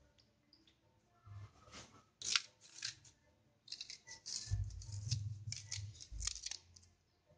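Banana leaves crackling and rustling in irregular bursts as leaf-wrapped food parcels are handled, with a couple of soft low thumps about four and a half and six seconds in.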